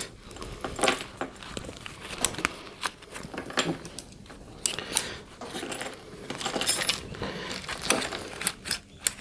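Small metal everyday-carry items such as knives, a multi-tool and a keyring clinking and rattling against each other as they are handled in a gear pouch, with irregular clicks and rustles.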